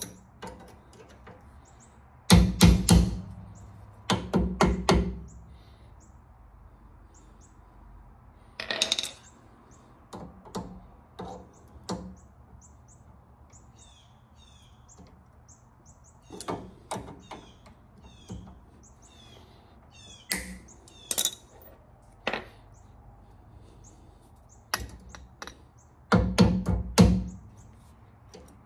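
Hammer driving a brass drift against the leaf spring link bolt of a C3 Corvette's rear suspension. It comes in three bursts of rapid metal-on-metal strikes, about two seconds in, about four seconds in and near the end, with lighter single clicks and clanks of tool work in between.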